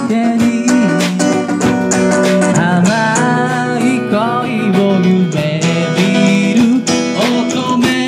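Live band music through outdoor PA speakers: guitar and drum kit playing a song.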